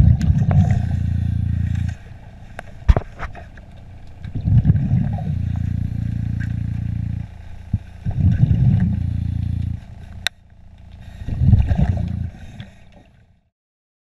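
Scuba diver breathing through a regulator underwater, in a regular cycle about every four seconds: a bubbly low rumble, then a steady low hum. A few sharp clicks and knocks come in between, and the sound fades out near the end.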